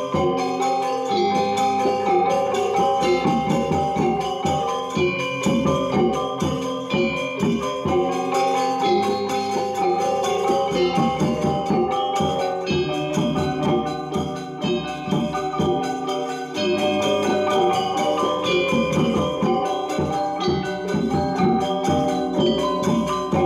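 Balinese gong kebyar gamelan playing: bronze metallophones ring out in quick, dense strokes over steady held lower tones.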